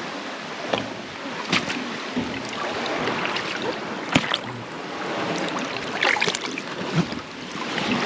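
Shallow sea water sloshing and splashing around a person wading with a dry bag, with rustles and knocks from the bag and camera being handled; the loudest is a sharp knock about four seconds in.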